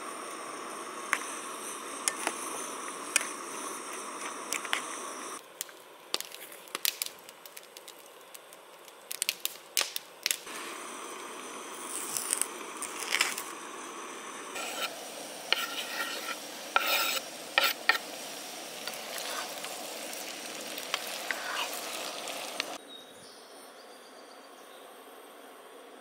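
Camp cooking sounds in several short takes: scattered sharp clicks and taps of a knife and utensils on a wooden cutting board and metal bowl, over a steady hiss like food sizzling in a pan. The clicks come thickest in the middle stretch.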